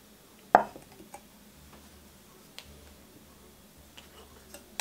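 A small stainless steel pot set down on a wooden cutting board with one sharp, ringing clank about half a second in, followed by a few faint light clicks of handling.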